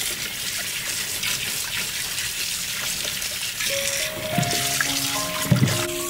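Tap water running in a steady stream onto vegetables in a stainless steel sink as they are rinsed by hand. Soft background music with a simple melody comes in about two-thirds of the way through.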